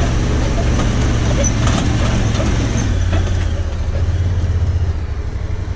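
Honda Pioneer side-by-side's engine running steadily with a low hum, with some rattling about one and a half to two seconds in.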